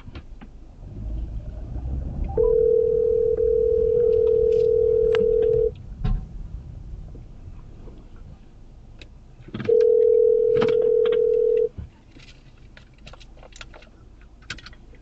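Telephone ringback tone from an outgoing 911 call, heard through a phone's speaker: two long steady tones a few seconds apart, meaning the call is ringing through and has not yet been answered.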